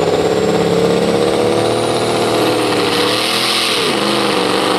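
Diesel engine of a Ford Super Duty pickup at high revs under heavy load while dragging a weight-transfer pulling sled, with a high whine climbing slowly above it. About three and a half seconds in the engine note sags, then picks back up.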